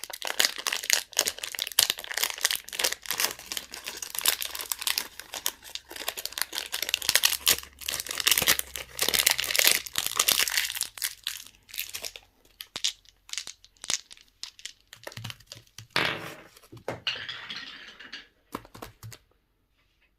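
Candy and toy packaging crinkling and tearing as it is unwrapped by hand: a dense, crackly rustle that thins out after about twelve seconds into a few separate rustles, then stops just before the end.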